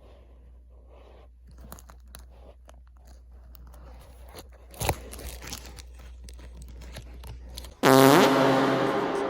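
Dry crackling and scratching, like the torn couch lining being clawed or chewed by a cat, with one sharp tick about five seconds in. About eight seconds in, a loud edited sound effect cuts in: a held chord that slowly fades.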